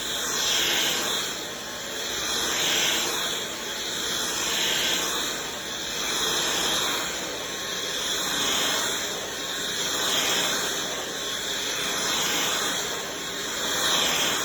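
WOWGO cordless stick vacuum running on its highest of three speeds: a steady motor whine and rushing air hiss that swells and fades about every two seconds as the head is pushed back and forth over the floor.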